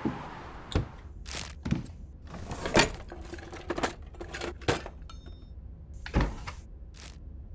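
A series of sharp knocks and clunks, about ten spread over several seconds, like doors and objects being handled, with a brief faint high beep about five seconds in.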